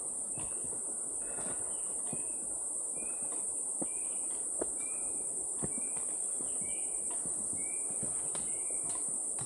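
Steady high-pitched drone of forest insects, with a bird repeating a short whistled note a little more than once a second and footsteps scuffing on a rocky trail.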